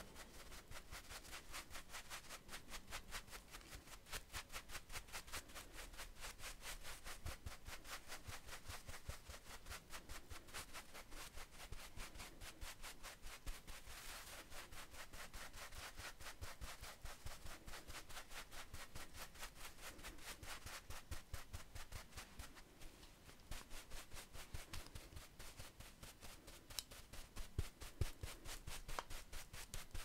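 Two wide bristle paint brushes swept over the bare skin of a neck close to a microphone: soft bristle-on-skin rubbing in quick, even, repeated strokes.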